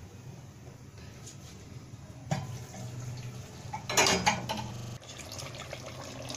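Kitchen handling sounds: a single knock about two seconds in and a short clatter of dishes or utensils about four seconds in, over a low steady background.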